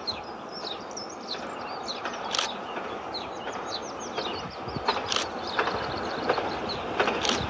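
Small birds chirping and singing over the low, steadily growing sound of a distant steam locomotive, a Black Five, approaching under steam, with a few sharp clicks.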